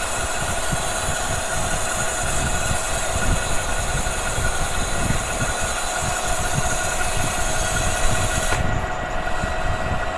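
Lathe turning a bronze ring with a high-speed steel tool: steady machine running with a high, hissing cutting noise as the tool takes a roughing pass on the outside diameter, slinging bronze chips. Near the end the hiss drops away suddenly, leaving the lathe's steady hum.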